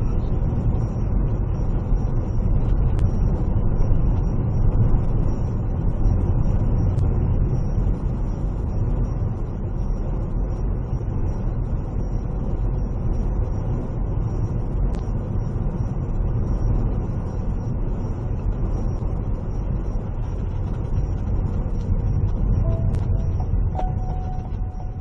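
Steady low rumble of a vehicle driving along the road, engine and tyre noise. A few sustained musical notes come in near the end.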